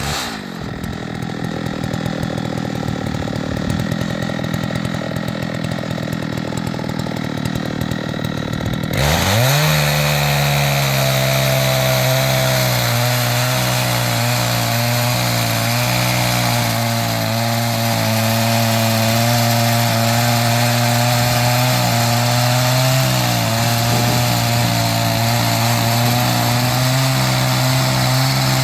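Chainsaw on an Alaskan chainsaw mill drops to idle at the start and idles roughly for about nine seconds. It then revs back up and runs steadily at high speed, sawing through a walnut log.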